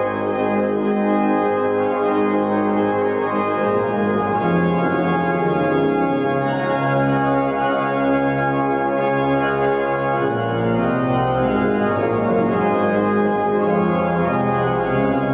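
Brass ensemble of trumpets, French horn and tuba playing slow, sustained chords that change every second or two.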